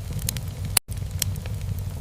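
Wood fire crackling in a fireplace: a steady low rumble of burning with several sharp pops. The sound cuts out for an instant just under a second in.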